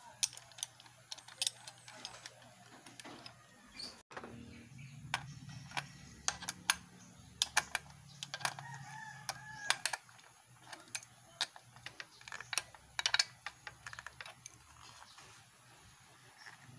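Sharp metal clicks and taps of a wrench working the blade-clamp bolts on an electric hand planer's cutter drum as a blade is fitted. A rooster crows once about eight and a half seconds in.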